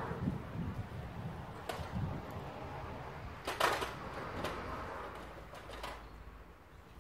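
A few sharp clicks and knocks over a low background rumble. The loudest is a short clatter about three and a half seconds in.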